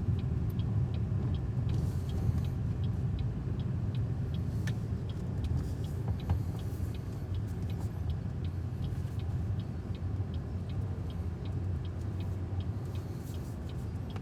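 A car's turn-signal indicator ticking at an even pace inside the cabin of a BYD Seagull electric car, over a steady low road rumble.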